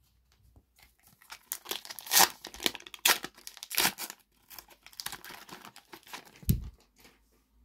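Foil Panini FIFA 365 card packet being torn open and peeled back by hand: a run of crinkling, crackling rips starting about a second and a half in and lasting several seconds, ending with a soft thump.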